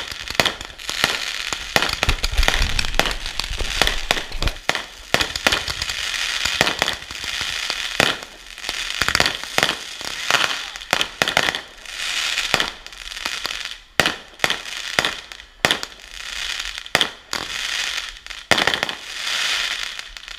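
Consumer fireworks going off in a long, continuous barrage: dense crackling with many sharp pops, and a few deeper thumps a couple of seconds in.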